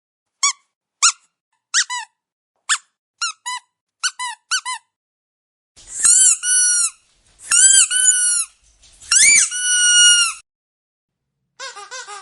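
Squeaky dog toy being squeezed: a run of short, high squeaks, then three long drawn-out squeaks of about a second each, then a quick flurry of squeaks near the end.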